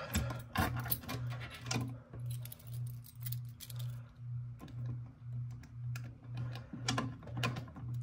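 Keys jangling on a ring, with clicks and knocks as a key is worked into the reset lock of a fire alarm pull station. A faint low hum pulses about twice a second underneath.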